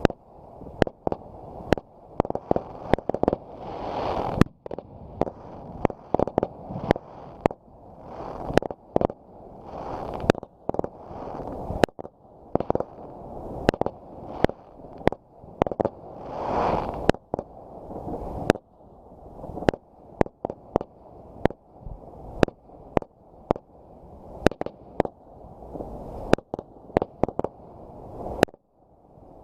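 Fireworks going off: an irregular, rapid series of sharp bangs, several a second at times, with a rushing noise that swells up before many of the louder bangs.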